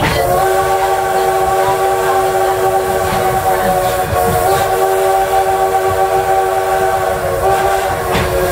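Steam locomotive whistle blown in one long blast, several notes sounding together as a chord and held for about eight seconds with a slight waver partway through, over the low rumble of the running train.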